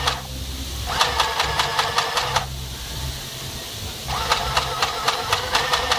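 Electric mini sewing machine running on its low speed setting in short bursts, its needle mechanism clattering at about eight strokes a second over a motor hum. It stops just after the start, runs for about a second and a half, pauses, and starts again about four seconds in.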